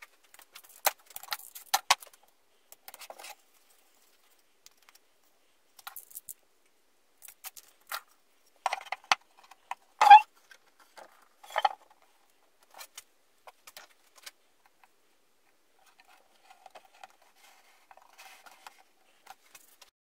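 Handling noise of an aluminium-sheet tabletop and tools: scattered clicks, taps and short rustles, with one loud knock and a brief metallic ring about ten seconds in as the tabletop is set down on its wooden box.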